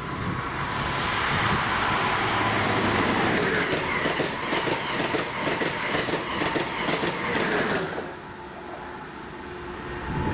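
Train passing close by at speed: a rush of wheel and air noise swells, then a rapid run of wheel clicks over the rails, and the sound drops off abruptly about eight seconds in.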